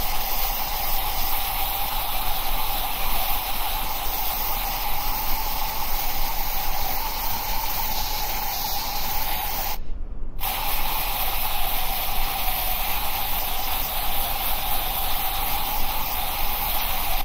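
Steady hiss of background noise with a faint band of hum in it, dropping out briefly about ten seconds in.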